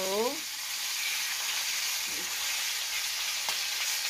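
Floured beef shank pieces sizzling as they brown in oil in a stainless steel frying pan, a steady hiss, with a short click about three and a half seconds in.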